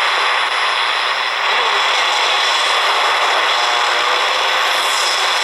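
Redsun RP300 shortwave receiver giving a steady rush of static as it is tuned between stations on the 49-meter band. The owner puts the band's noisiness down to city FM stations breaking through the receiver.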